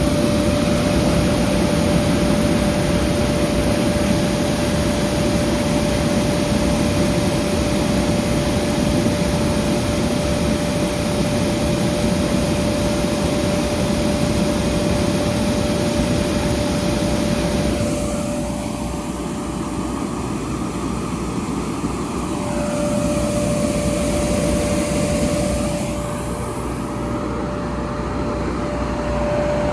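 FMC M10000 30-ton ground air conditioning unit running in cooling mode, its gen-set engine and blower making a steady loud drone with a constant whine. The high hiss dulls for a few seconds about two-thirds of the way through and again near the end.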